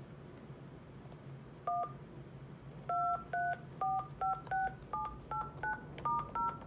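Polycom SoundStation 2 conference phone keypad touch-tones (DTMF) as the number keys are pressed in order from 1 upward. One short two-note beep comes near two seconds in, then ten more follow quickly, about two or three a second, each pair of notes pitched a step higher as the keys move down the keypad rows.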